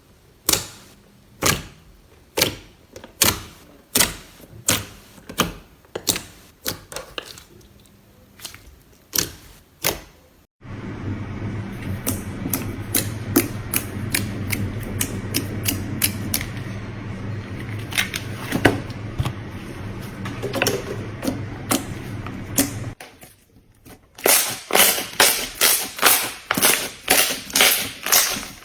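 Slime being pressed and poked, giving sharp clicking pops about one or two a second. Through the middle section the pops sit over a steady low hum and hiss, and near the end they come faster.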